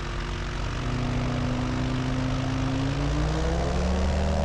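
An Avid light aircraft's two-stroke engine and propeller run up to takeoff power for the takeoff roll. The engine note climbs steadily in pitch from about a second in.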